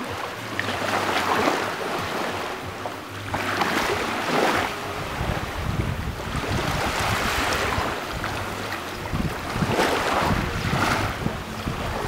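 Small sea waves breaking on a pebble beach and around shoreline rocks, the surf swelling and easing about every three seconds.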